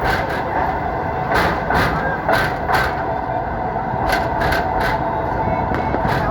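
Train running on the rails, heard from inside the carriage: a steady rumble with irregular clacks and rattles.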